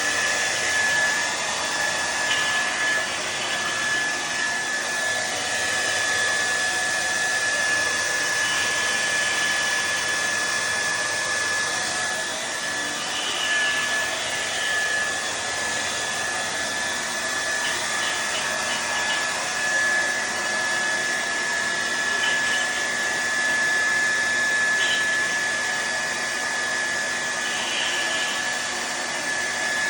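TRESemmé Smooth and Shine hair dryer running steadily: an even rush of air with a constant high whine.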